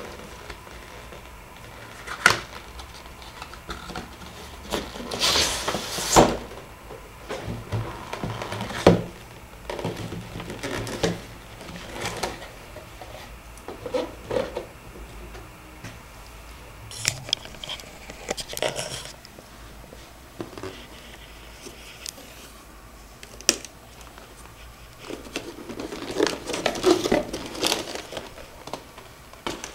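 Irregular knocks, clicks and rustling, as of small objects being handled and set down. There are a few longer scraping or rustling stretches among them.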